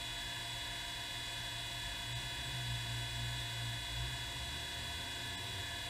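Steady electric machine hum in a workshop, several fixed tones over a low drone that swells slightly partway through.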